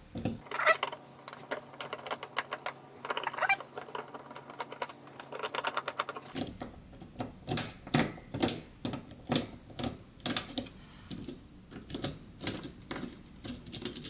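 Small screwdriver clicking and scraping against the plastic fan shroud of an AMD Wraith Spire cooler as the fan's screws are backed out: a run of irregular light clicks and ticks.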